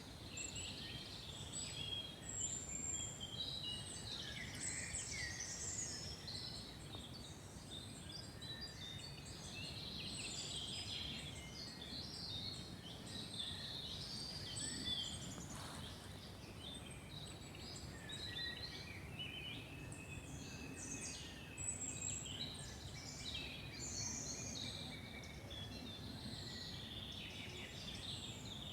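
Several songbirds singing and calling at once in a forest, many short chirps and whistles overlapping throughout, over a faint steady background hiss.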